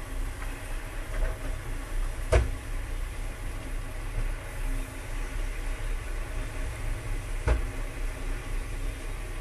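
A hydraulic excavator loading tipper trucks, heard at a distance: a steady diesel machinery rumble with two sharp knocks about five seconds apart, the first two seconds in and the louder of the two.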